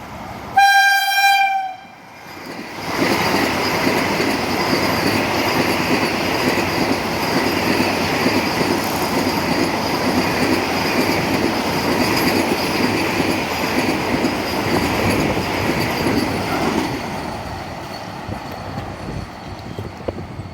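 A Vande Bharat Express train gives one short horn blast on a single steady note lasting about a second. A few seconds in it passes at speed with a loud, steady rush of wheels and air, which fades near the end.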